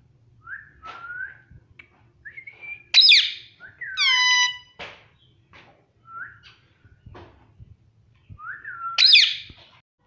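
Indian ringneck parakeet calling: soft short rising chirps and whistles, with two loud harsh squawks about three seconds in and near the end. Just after the first squawk it gives one long whistled note that drops in pitch and then holds.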